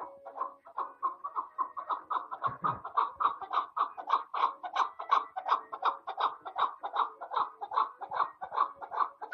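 A chukar partridge calling a rapid, even series of clucking notes, about five a second, growing louder over the first few seconds.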